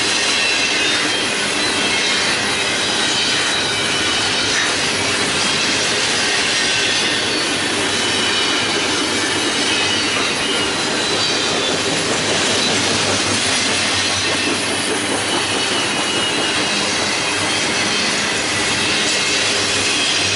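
Long intermodal freight train of container cars rolling past at steady speed: continuous wheel-on-rail noise with faint high-pitched wheel squeal.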